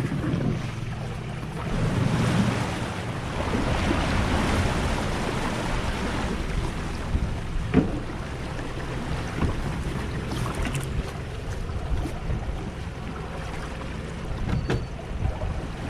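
Boat drifting at sea: a low engine hum under the wash of waves against the hull, with wind buffeting the microphone. There are a few knocks, the loudest a single sharp thump about eight seconds in.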